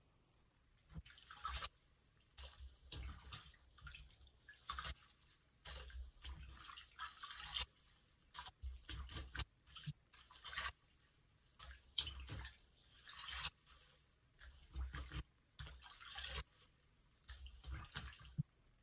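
A soft sponge is squeezed and released again and again under the water in a filled sink. It makes wet squishing and sloshing sounds with drips, in uneven pulses about once a second.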